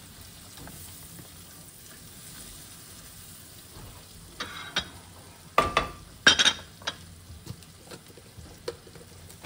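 Diced onions, bell peppers, celery and green onions frying in melted butter and olive oil in a saucepan on high heat, with a faint steady sizzle. From about halfway through, a utensil stirring the pan clicks and knocks against it several times, loudest about six seconds in.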